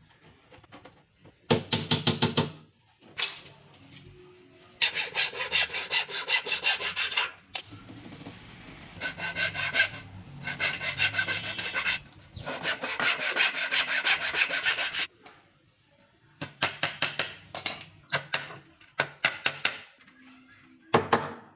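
Hand saw cutting a thin wooden beading strip in several bursts of quick back-and-forth strokes. Near the end come runs of light, evenly spaced hammer taps driving small nails.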